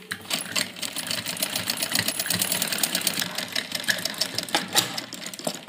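Domestic straight-stitch sewing machine running at a steady speed, its needle mechanism giving a rapid, even clatter as it stitches a seam through cloth, stopping near the end.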